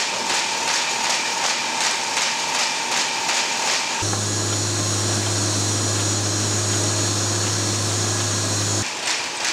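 Printing-press machinery running: a fast, even mechanical clatter, joined about four seconds in by a steady low hum and whir that lasts about five seconds, then the clatter alone again near the end.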